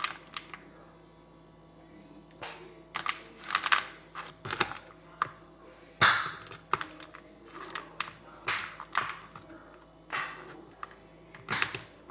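Irregular clicks, taps and short scrapes of kitchen utensils and ingredients being handled during food preparation, at an uneven pace with a few louder knocks.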